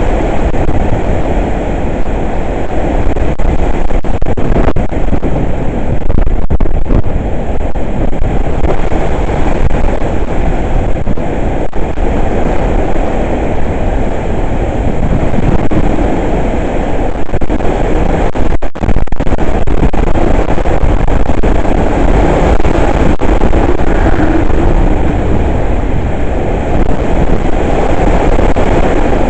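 Hurricane-force wind blowing hard and loud over the microphone, a continuous rushing noise that swells and eases with the gusts.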